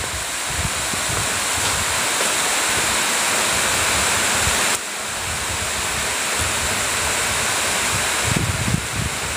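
Heavy rain pouring down in a steady, loud hiss. Its level drops slightly and abruptly about five seconds in.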